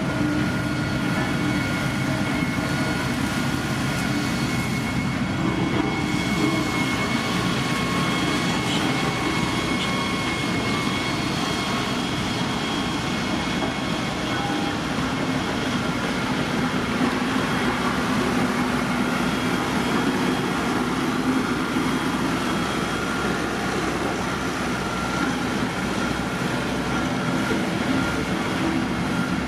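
Heavy road-building machinery running steadily, its diesel engine rumbling with several constant high whining tones above it.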